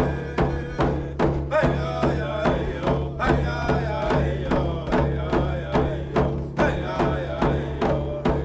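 A drum beating a steady pulse, about three strokes a second, under voices chanting a wavering melody.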